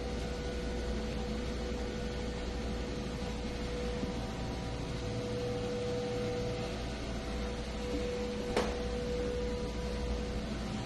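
A steady hum, with a clear high tone held unchanged throughout, and a single sharp click about eight and a half seconds in.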